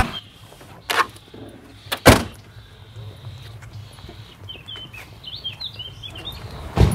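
Birds chirping, a short run of quick up-and-down calls between about four and six and a half seconds in, over a quiet background. Two sharp knocks come in the first couple of seconds and another at the very end.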